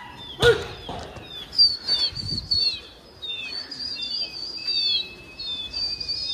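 A large flock of pigeons in flight, with wingbeats under many thin, high whistles that overlap and slide down in pitch, and one longer steady whistle near the end. There is a single sharp smack about half a second in.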